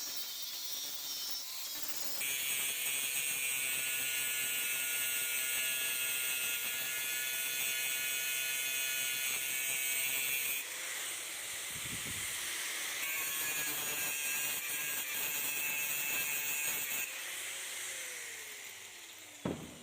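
Power tool cutting through the steel threaded shank of a tow ball, a steady high-pitched whine that turns rougher for a couple of seconds midway, then fades with a falling pitch as the motor winds down near the end.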